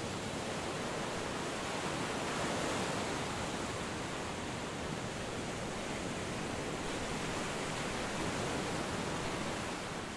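Ocean surf: a steady wash of breaking waves that begins to fade out near the end.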